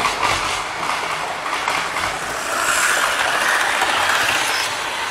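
Model train running along the track past the microphone: a steady whirring rattle of wheels and motor, with a few light clicks early on. It swells as the train passes close, loudest about three to four seconds in.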